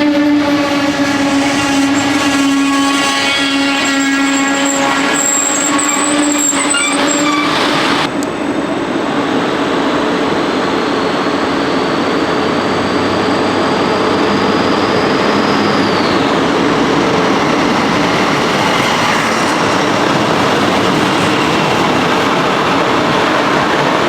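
Train noise at a station. For the first eight seconds a steady humming tone with many overtones holds. After an abrupt change there is steady running noise from a train, with a faint high whine that rises slightly and stops about sixteen seconds in.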